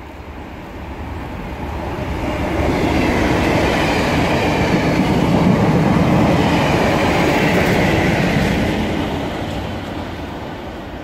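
Class 37 diesel locomotives, with English Electric V12 engines, hauling test-train coaches past at speed. Engine noise and wheel clatter build over the first few seconds, stay loud through the middle, then fade as the train draws away.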